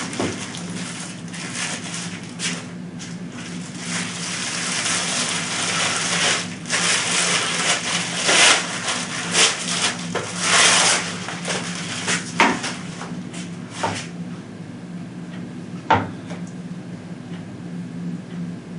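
Packaging being pulled off a rifle scope: rustling and crinkling for several seconds, with scattered sharp clicks and knocks, then quieter handling and a single knock near the end.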